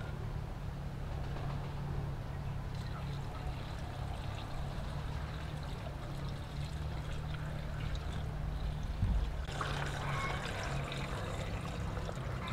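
Plastic wrapping crinkling and rustling in the hands, with a dull knock about nine seconds in. Then water pours from a plastic jug into a large plastic jar of cut fruit.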